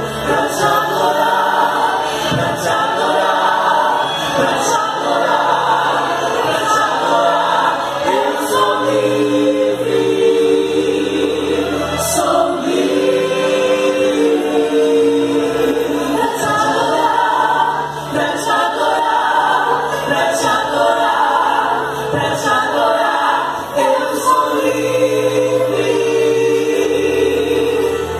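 Three women singing a Portuguese gospel song in harmony through microphones, with long held notes sung together.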